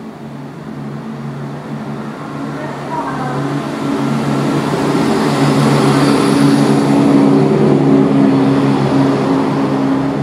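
Class 170 Turbostar diesel multiple unit running into the platform close by, its underfloor diesel engine note steady in pitch and growing louder as the train draws alongside, loudest from about six seconds in.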